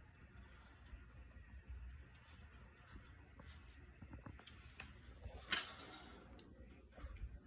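Faint rustling and scattered clicks of pet monkeys moving about a wire cage, with two brief high chirps early on and one louder sharp rattle about five and a half seconds in.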